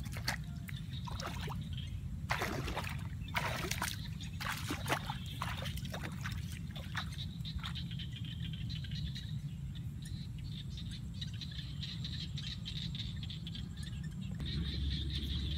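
Bare feet wading through shallow muddy water, a run of sloshing splashes over the first seven seconds or so, over a steady low wind rumble on the microphone.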